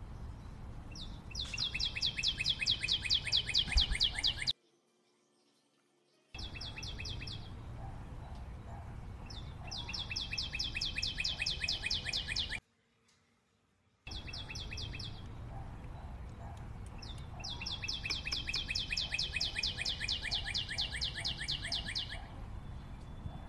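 A songbird singing a rapid trill of repeated notes three times, each trill a few seconds long and sinking slightly in pitch, over a steady background hiss. The sound cuts to silence twice for a second or two between songs.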